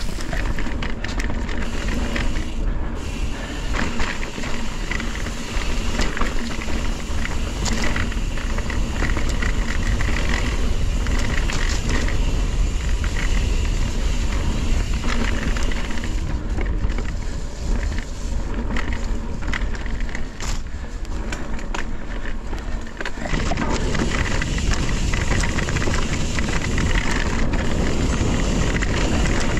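Mountain bike riding over a dirt and rock trail: steady tyre and wind noise with frequent rattles and knocks from the bike.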